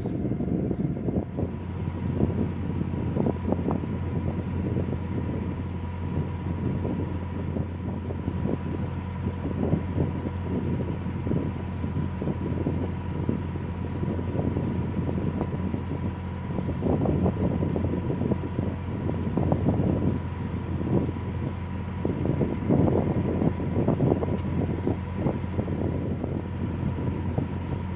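A narrowboat's engine running steadily as the boat cruises, a constant low hum with a thin steady whine above it, while gusts of wind buffet the microphone irregularly.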